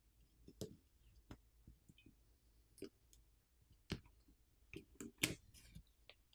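Faint, irregular clicks and taps of small hand tools and plastic parts being handled while a compact USB-C wall charger is taken apart, about eight in all, the sharpest about five seconds in.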